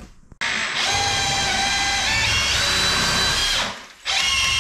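Cordless drill spinning a 3D-printed jet-pump impeller submerged in water: the drill motor whines steadily and the water churns, and the whine shifts in pitch about two seconds in. It stops briefly near the end, then starts again. This is the test run of the more aggressive-pitch impeller, which screwed itself up the shaft and was damaged.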